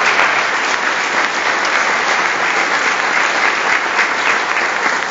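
A roomful of people applauding, steady dense clapping.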